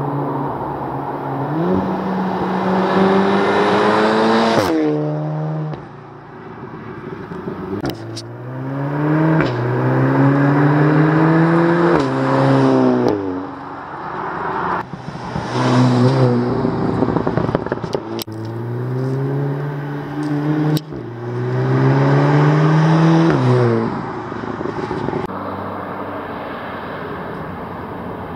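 Turbocharged VW Group hot hatches with iPE aftermarket exhausts accelerating hard past. The exhaust note climbs in pitch through each gear and drops sharply at the upshifts, over several runs, with a short crack at some shifts. Near the end there is only quieter road noise.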